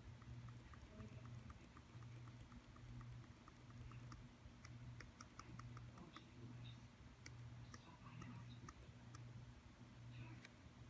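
Faint clicking at a computer, over a low steady hum. A quick, even run of light ticks, about four a second, fills the first few seconds, then sharper single clicks come scattered through the rest.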